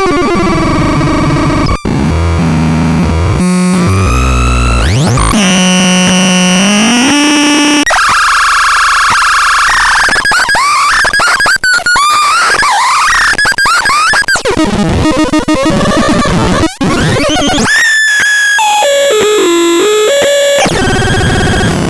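Belzebulon R putting out loud, harsh electronic noise: stacked tones that step in pitch, fast sweeps up and down, warbling squeals and sudden dropouts, with no steady beat.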